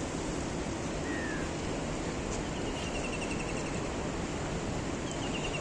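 Steady rushing of the flood-swollen Ganga river. A bird calls faintly over it: a short falling note about a second in, then a quick run of repeated chirps around three seconds in and again near the end.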